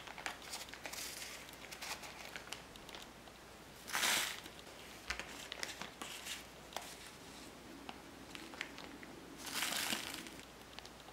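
Thin clear plastic bag crinkling while a small plastic spoon scrapes and clicks against a plastic tray, scooping powdery candy dough into the bag. There are two louder bursts of crinkling, about four seconds in and near the end.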